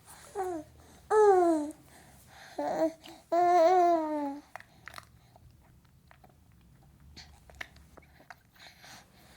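A 6-month-old baby girl cooing and babbling: four short vocal sounds in the first half, each falling in pitch, the last the longest. After that, only a few faint clicks.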